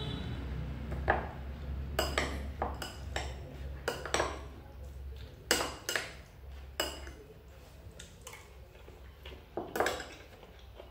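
Metal spoon clinking and scraping against a small ceramic bowl while salad is scooped up: about a dozen irregular, sharp clinks.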